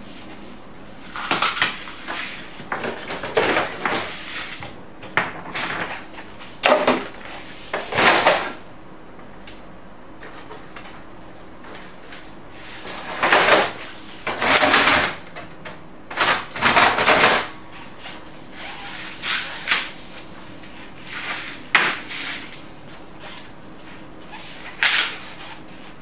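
Sheets of printer paper being handled, rustling and sliding, in many short irregular bursts.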